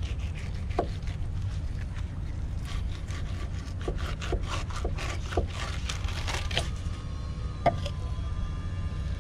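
Fillet knife scraping and slicing along a rockfish fillet on a cutting board, a quick run of rasping strokes with a few sharp knocks of the blade on the board, over a steady low rumble.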